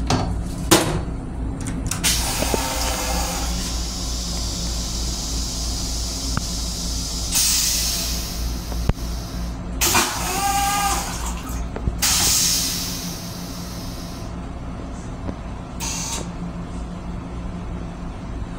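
Toilet in a Metro-North M7 railcar restroom flushing into its stainless steel bowl: a click, then hissing spray of rinse water in several surges over about twelve seconds, with a brief pitched sound about ten seconds in. A steady low train rumble runs underneath throughout.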